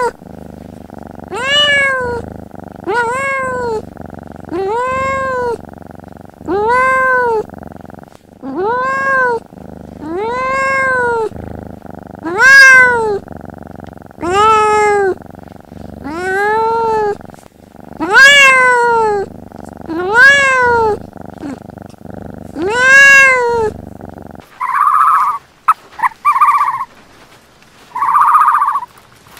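Young kittens mewing over and over, about one high meow every second or two, each call rising and then falling in pitch. Near the end the meows stop and four short calls of a different kind follow.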